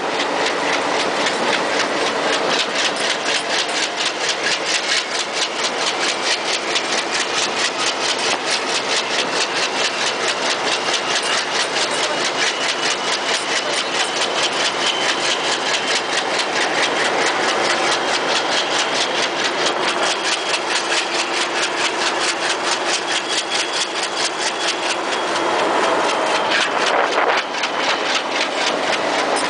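A passenger train with LHB coaches running at speed, heard from an open carriage door: a loud, fast, even clatter of wheels over the rail joints with a faint steady whine above it. It swells briefly near the end.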